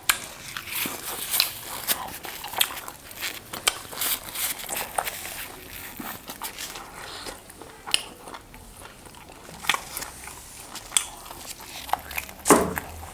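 Close-miked eating: irregular crunchy bites and wet chewing of fried meat lollipops, with one louder noise a little before the end.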